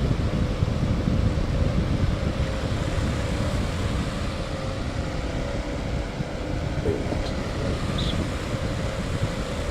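Air from an electric fan blowing on a camcorder's built-in microphone, which is covered by a homemade foam wind protector. It is a steady low wind rumble with a faint steady hum.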